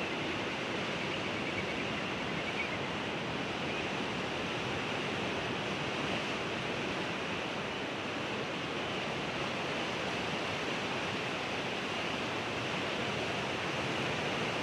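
Ocean surf: a steady, even wash of breaking waves with no music, cutting off suddenly at the end.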